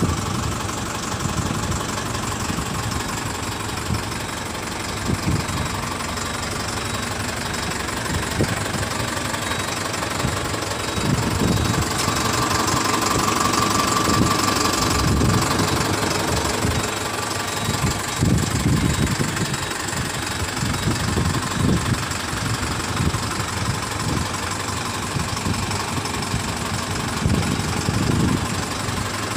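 An engine idling steadily, with irregular low rumbles over it.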